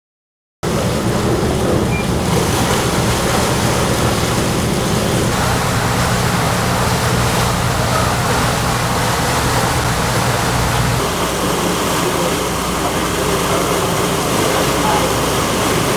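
Boat under way: engines running with a steady drone over the rush of wind and water. The sound cuts in abruptly just after the start, and the engine note shifts about eleven seconds in.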